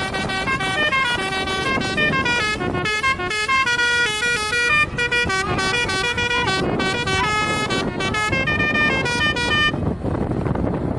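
Indonesian bus telolet horn, a set of multi-tone air horns, playing a long rapid melody of short stepped notes over a steady noisy background. The tune stops about ten seconds in.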